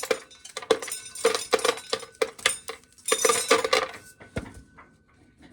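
Dry corn being shelled, with kernels clattering and clinking in quick irregular rattles that thin out to a few faint clicks after about four seconds.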